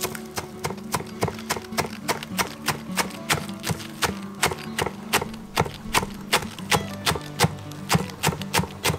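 Chef's knife chopping green onions on a wooden cutting board: a steady run of crisp knocks, about three to four a second, over soft background music.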